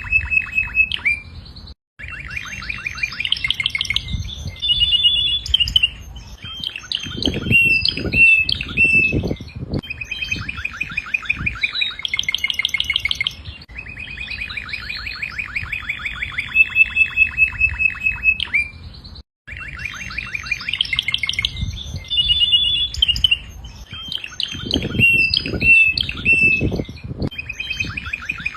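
Domestic canary singing a long, continuous song of rapid trills, buzzy rolls and held whistled notes. The song cuts off briefly twice, about 2 seconds in and about 19 seconds in, and the same stretch of song follows each break.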